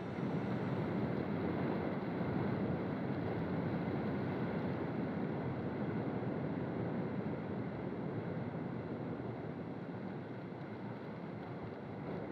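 Steady rush of sea water and wind, easing off slightly toward the end.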